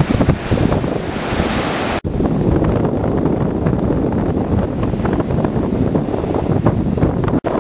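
Rough sea surf breaking on a beach under strong wind that buffets the microphone, with two abrupt brief dropouts, about two seconds in and near the end.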